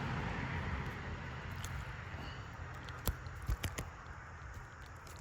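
Steady outdoor background hiss with a few light, sharp clicks and taps scattered through the second half.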